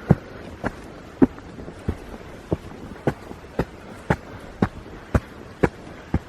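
Footsteps of a hiker walking at a steady pace on a hard track, about two sharp steps a second.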